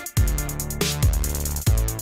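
Electronic background music with a steady drum-machine beat: deep kick drums about every 0.8 seconds under synthesizer chords and fast hi-hat ticks.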